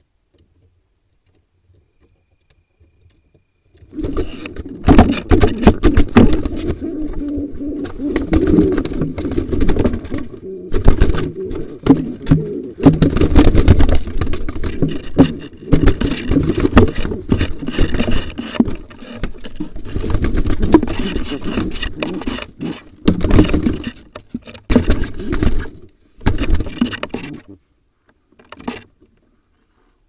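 Barn owl attacking pigeons in a wooden nest box: wings beating and bodies thrashing and knocking against the box in a loud, irregular scuffle. It starts suddenly about four seconds in and stops shortly before the end.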